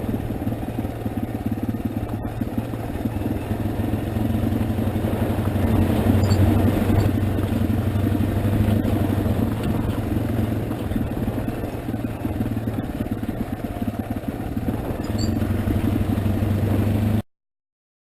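Motorcycle engine running steadily under way, with rattling and rumble over rough ground. The sound cuts off abruptly near the end.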